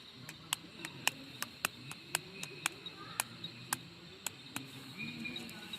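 An irregular series of sharp clicks or taps, about two a second, over a faint steady high-pitched tone.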